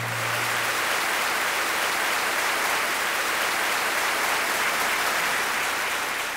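Audience applause: many hands clapping in a steady, even patter that begins to fade near the end.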